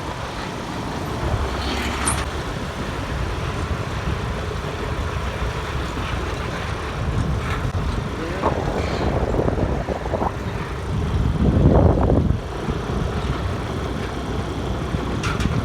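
Honda Grazia 125 scooter's single-cylinder engine running at riding speed on a rough dirt road, with road and wind noise over the microphone; the sound swells louder about twelve seconds in.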